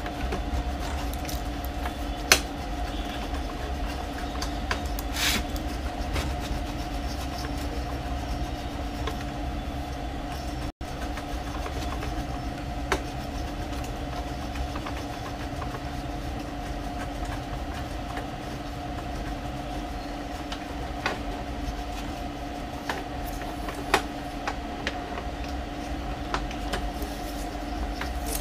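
Handling and cloth-wiping of an open Epson L3110 printer's carriage mechanism: scattered light clicks and knocks of its plastic and metal parts, the sharpest about two seconds in, over a steady low background hum with two faint held tones.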